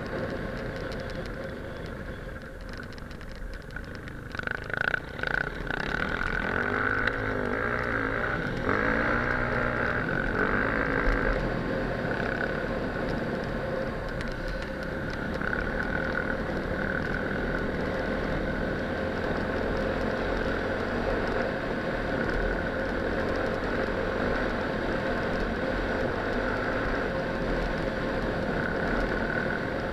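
Enduro motorcycle engine running at speed on a dirt track, under heavy wind noise on the on-board camera's microphone. The engine's pitch swings up and down a few times between about seven and eleven seconds in.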